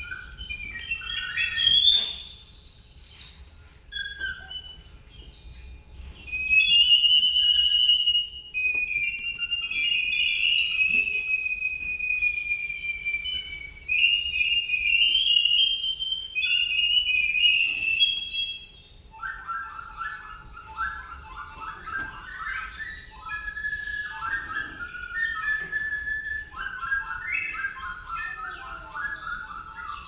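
Recorders played in imitation of birdsong: high chirps, warbles and trilled whistles, changing about two-thirds of the way through to a lower run of quick, fluttering trills.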